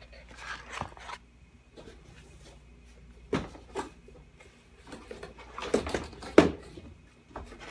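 Cardboard and molded pulp packaging of a laptop box being handled: scattered knocks, taps and scrapes, the sharpest about six seconds in.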